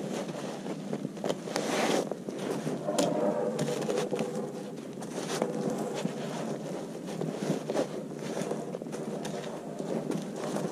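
Irregular knocks, scrapes and rustles of a log being handled and shifted by hand.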